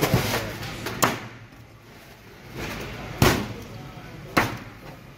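Heavy knife chopping down through a bone-in section of mahi-mahi onto a plastic cutting board: four sharp chops, the loudest a little past the middle.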